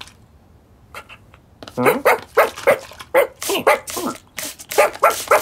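Cartoon puppy yapping and barking, voiced by a person: after a quiet start, a rapid string of short, excited yaps begins about a second and a half in, about three a second.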